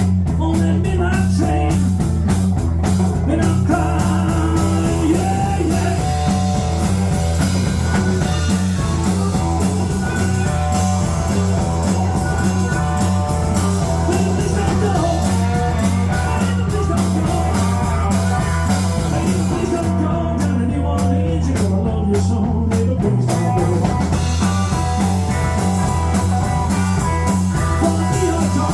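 Blues-rock band playing an instrumental passage with a steady, driving beat, with melodic lead lines over the rhythm section.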